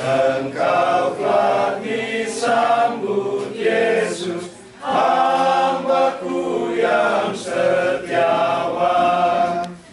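A group of men singing a hymn together without instruments, in long held phrases with a brief pause for breath about halfway through.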